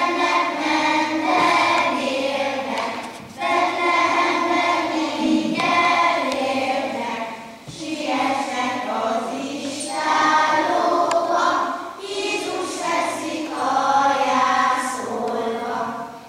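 A group of children singing a Christmas hymn together, in phrases with short breaks for breath; the singing stops just before the end.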